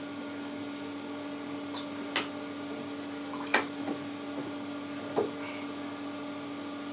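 A wooden spoon splashing and knocking in shallow bath water and a plastic cup, a few short taps and splashes about two, three and a half, and five seconds in, over a steady low hum.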